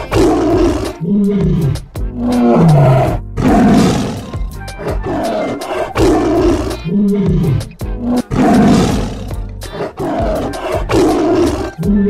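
Tiger roaring and growling over and over, a loud call every second or so, several falling in pitch, over background music.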